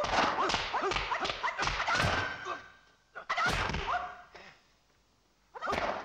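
Film fight sound track: a martial artist's high-pitched shrieking fighting cries mixed with sharp punch and kick impact effects, in three bursts, the longest at the start, another a little past the middle, and a short one near the end.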